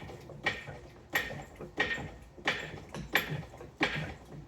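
A car jack being worked in steady strokes, with a sharp click about every two-thirds of a second.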